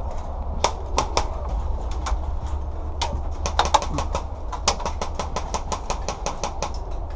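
Airsoft guns firing: a few scattered shots, then from about three and a half seconds in a rapid string of sharp cracks at several a second, over a steady low rumble.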